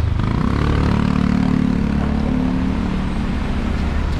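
Cars driving slowly past at close range, their engines running with a steady hum that eases off near the end.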